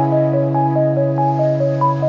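Instrumental background music: a melody of short notes over long held low notes.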